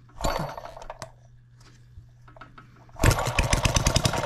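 Enjomor 6cc hit-and-miss model engine being flicked over by hand: a short burst of firing about a quarter second in that dies within a second, then about three seconds in it catches and runs with a rapid, even clatter of firing strokes. It is running a little bit lean, by the owner's judgement.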